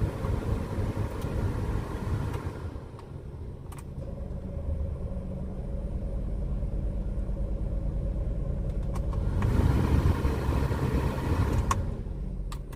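Maruti Suzuki Alto 800's three-cylinder petrol engine idling steadily with the AC on, its newly fitted accessory belt running without chirping or squeal. It grows somewhat louder about nine seconds in, and a few light clicks come through.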